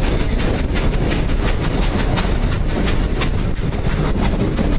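Excursion train under way behind a Baldwin 2-8-2 steam locomotive, heard from a riding passenger car: a steady rumble of the cars and wheels on the rails with scattered sharp clicks, and wind buffeting the microphone.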